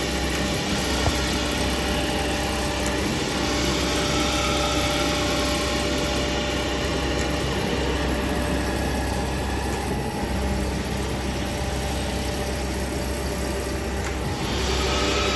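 Kent hydraulic surface grinder running with a steady machine hum and whine while its wheelhead is driven downward on the motorized vertical feed. The higher hiss eases off in the middle and picks up again near the end.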